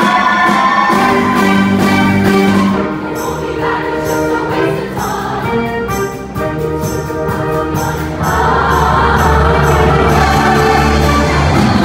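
Show choir singing with instrumental accompaniment, starting on held chords. About eight seconds in the music gets louder and fuller, with a strong bass.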